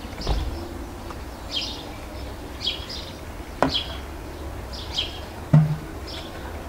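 A small bird chirping over and over, about once a second. A few sharp knocks break in, the loudest about five and a half seconds in, over a steady low rumble.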